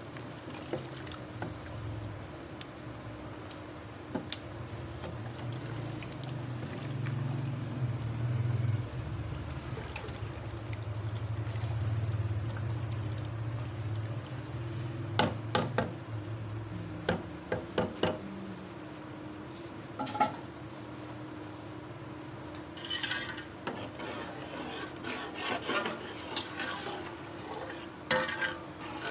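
Metal ladle stirring milk and rice in an aluminium pot, scraping and knocking against the pot's sides; the knocks come thick and fast in the second half. A low hum runs underneath through the first half.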